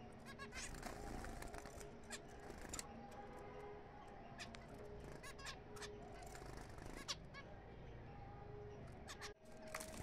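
A colony of zebra finches calling: many short, nasal beeping calls from several birds at once, scattered irregularly throughout.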